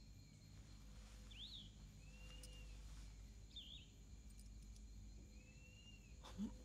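Near silence with faint bird calls every second or two, a quick up-and-down chirp alternating with a longer arched whistle, over a low steady room hum.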